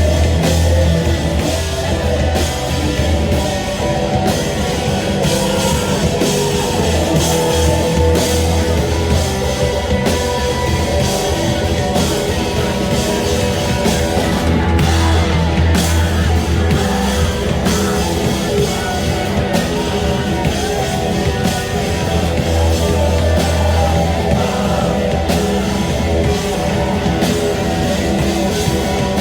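Rock band playing a loud, heavy punk-metal song live, with a pounding drum kit, distorted guitar and a heavy bass line.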